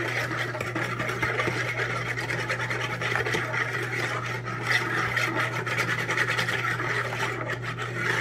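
A metal fork stirring yeast, sugar and warm water in a mixing bowl, scraping quickly and continuously against the bottom of the bowl as the yeast is dissolved.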